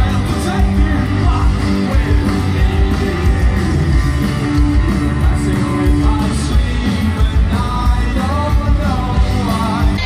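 Live band playing with a lead singer, heard from within the crowd in front of the stage.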